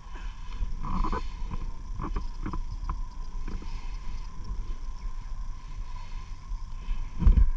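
Low rumbling wind and movement noise on a body-worn camera's microphone, with a faint steady tone, several short knocks in the first three seconds or so and a louder thump near the end.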